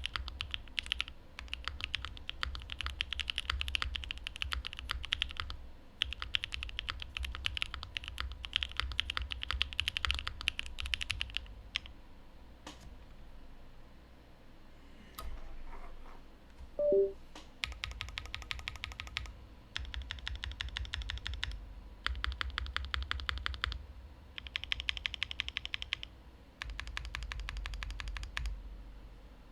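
Typing on a Mode Envoy custom mechanical keyboard with a carbon fiber plate, lubed Cream Soda linear switches and GMK Thai Tea keycaps, in runs of rapid keystrokes. There is a pause about halfway through, and in it a brief two-note falling blip is the loudest sound.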